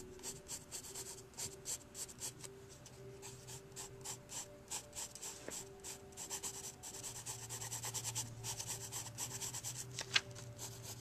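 Pencil scratching on lined notebook paper in many quick short strokes, shading in a drawing, over a faint steady hum. One sharper click about ten seconds in.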